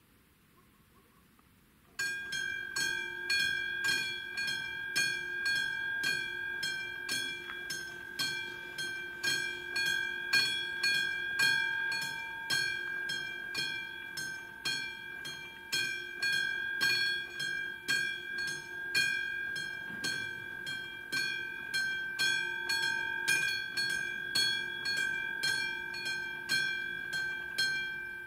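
Level crossing warning bell starting about two seconds in and ringing steadily at about two strokes a second, a sign that the crossing is closing for an approaching train. It dies away right at the end.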